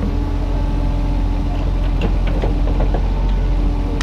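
Kubota mini excavator's diesel engine running steadily as it works, with a few light clicks and knocks about two to three seconds in.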